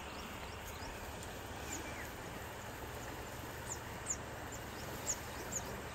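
Outdoor ambience: a steady low hum and hiss, with several short, high, falling bird chirps in the second half.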